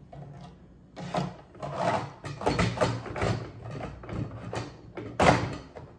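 Handling noise of the DeWalt chainsaw's plastic bar cover being fitted over the bar and chain: irregular scraping and clattering, with a sharp knock a little after five seconds in.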